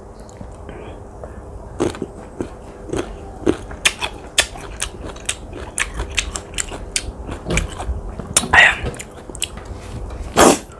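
Young, crisp water mango being bitten and chewed close to the microphone: a run of sharp crunches, with two louder, longer rasping noises near the end.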